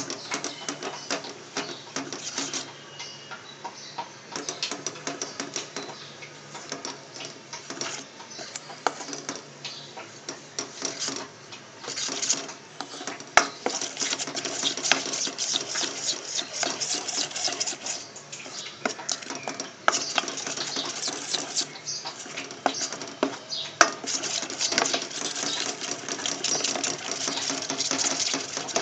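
Spoon stirring and scraping melting chocolate and butter in a stainless-steel bowl over a double boiler: quick, irregular clinks and scrapes against the bowl's side, busier in the second half.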